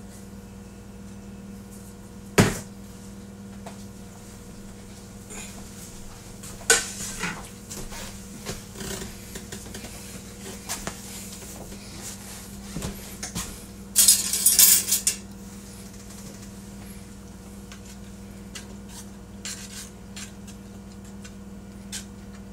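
Kitchen clatter of dishes and utensils: scattered clinks and knocks, a sharp clank about two seconds in and a louder, rattling burst of about a second around the middle, over a steady low hum. Near the end a metal spoon taps in a stainless steel saucepan of cheese sauce as it is stirred.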